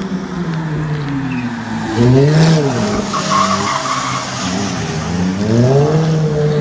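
A sports car engine revved hard while the car slides, its pitch climbing and dropping back twice, with tyres squealing and skidding about three seconds in.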